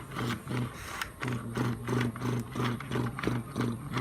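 Small electric motor and gears of a toy RC truck running with a rhythmic pulsing hum, about four pulses a second, with light clicking.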